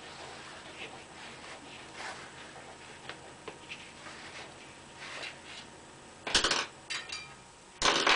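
Small clicks and rustles of hard objects being handled, then two loud, short clatters of hard, metallic-sounding objects knocking together, one about six seconds in and one near the end.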